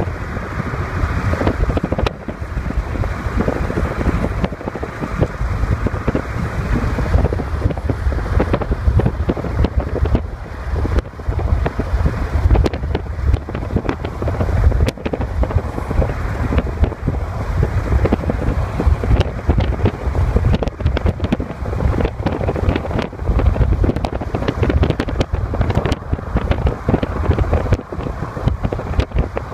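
Strong wind buffeting the microphone in uneven gusts, a heavy low rumble over the steady rush of freeway traffic.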